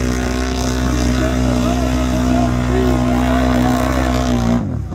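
Can-Am Renegade 1000 XMR ATV's V-twin engine running wide open at one steady pitch as the quad ploughs through the mud pit; the rider feels it is not pulling the RPMs it should. The engine note cuts off suddenly near the end.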